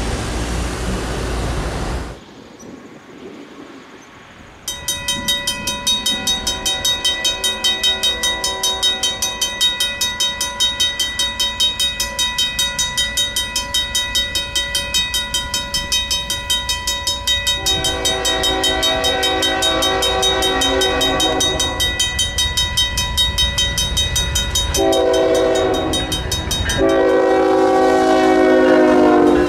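Mechanical railroad crossing bell ringing with rapid, even strokes of its electromagnet-driven hammer on the gong. From about two-thirds of the way in, a diesel locomotive's horn sounds over it in long blasts. The first couple of seconds are passing road traffic.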